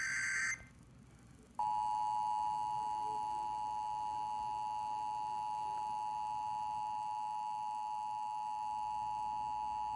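Emergency Alert System broadcast signal: the tail of a SAME digital header burst, a harsh data squawk, cuts off about half a second in. After a short gap the two-tone EAS attention signal (853 and 960 Hz together) starts about a second and a half in and holds steady, marking the start of an Amber Alert activation.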